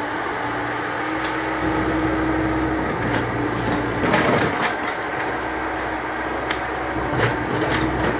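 Komatsu PC70 tracked excavator's diesel engine running steadily under load, with a steady whine. Scattered sharp knocks and clicks cut in, with a louder burst of knocking and scraping about four seconds in.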